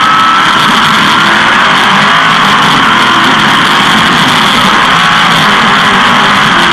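360 sprint car's V8 engine running hard at racing speed, heard very loud and steady from an in-car camera.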